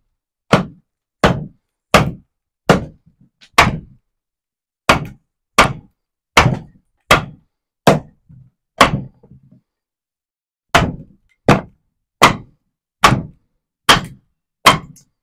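A wooden club or mallet striking the back of a steel froe blade, driving it down into a standing wooden billet to split it. About seventeen sharp whacks at a steady pace of a little under one and a half per second, with a pause of about two seconds just after the middle.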